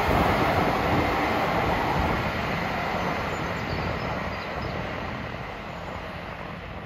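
Diesel passenger train running along the track below, the steady noise of its wheels and engine fading as it moves away.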